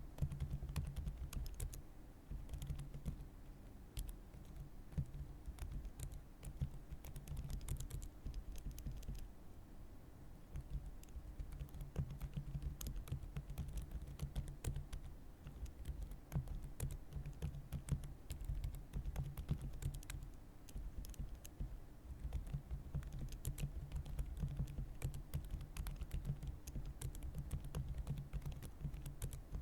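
Continuous typing on a computer keyboard: a dense, uneven stream of key clicks with no real pause.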